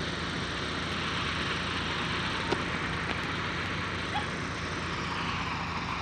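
Diesel engine of an Iveco EuroFire turntable-ladder fire engine running steadily, with a couple of faint clicks.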